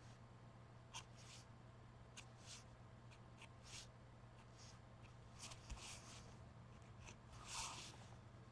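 Near silence: faint, scattered rustles and scratches of paper being handled and worked on a collage card, the loudest rustle near the end, over a low steady hum.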